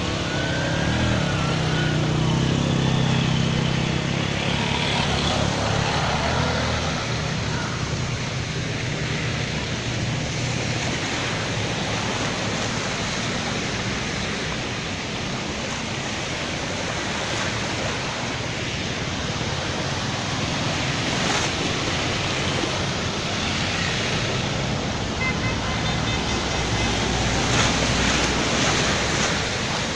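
Motor vehicles driving slowly through a flooded street. A steady rush of water runs throughout, splashing off the wheels, under the low hum of engines. The engine hum is strongest in the first several seconds.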